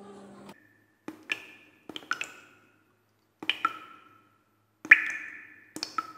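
Small shot glasses being knocked and set down on a wooden shelf, one after another: about five groups of sharp taps over five seconds, each followed by a brief glassy ring.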